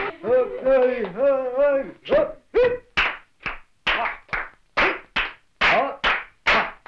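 A drawn-out, wavering vocal call lasts about two seconds. Then a steady dance beat starts: sharp hand-drum strokes and hand claps, about two to three a second, for Arabic dancing.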